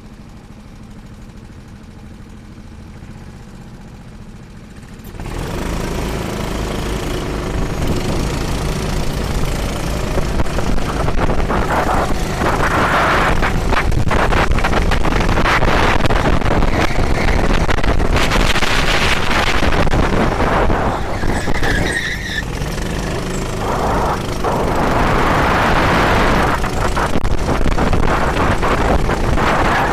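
Vehicle noise picked up by an onboard FPV camera during a race: a rush of wind and rumble that comes in sharply about five seconds in and continues with repeated louder swells.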